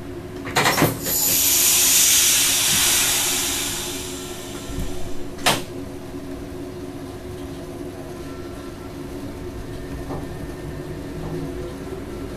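Electric train heard from the cab as it sets off: a clunk, then a loud burst of compressed-air hiss that fades over about three seconds, and a sharp click. After that a steady electrical hum runs, with a faint whine rising slowly in pitch near the end as the train picks up speed.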